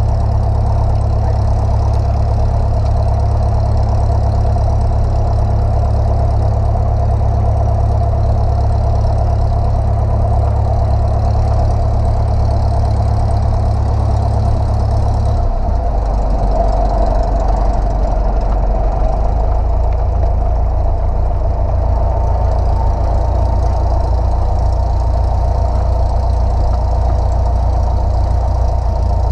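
Light single-engine piston airplane engine running at low power while taxiing; about halfway through the engine note drops lower as the power is eased back.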